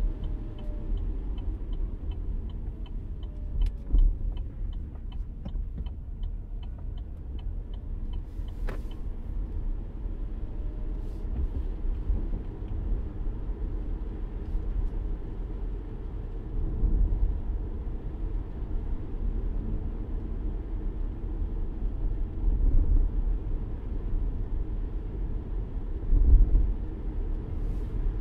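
Car cabin rumble while driving, steady and low, with a regular turn-signal ticking at about two ticks a second that stops about nine seconds in. There are a couple of sharp knocks near the start and a few brief swells in the rumble later.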